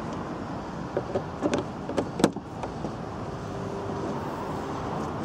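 A few short knocks and clicks over a steady background, the loudest about two seconds in, then a sharp thump at the very end.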